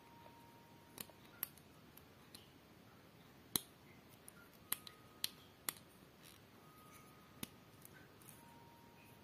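Plastic LEGO bricks clicking as they are pressed together and handled: about eight sharp, separate clicks, the loudest about three and a half seconds in.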